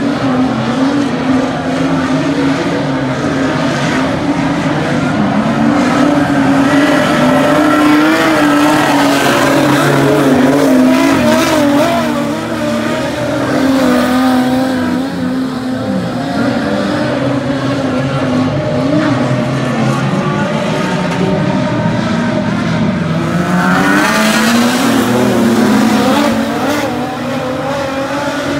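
A pack of dirt-track race cars running at race pace. Their loud engine notes rise and fall as the cars accelerate and lift through the laps, with a rising surge of revs about three-quarters of the way through.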